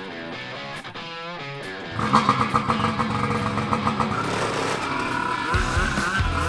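Background rock music with electric guitar, quiet at first and coming in fully about two seconds in, with a heavy bass beat joining near the end.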